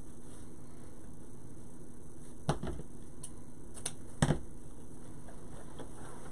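Scissors cutting ribbon in a few sharp snips, about two and a half seconds in and again around four seconds, the last the loudest.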